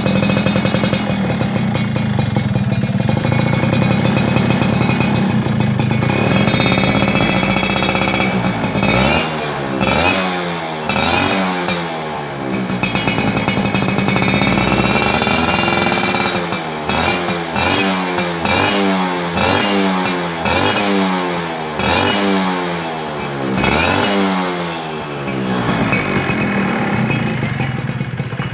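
Two-stroke motorcycle with an aftermarket racing expansion-chamber exhaust, idling steadily and then blipped again and again from about nine seconds in, each rev rising and falling in pitch, with one longer rev midway. It settles back to idle near the end.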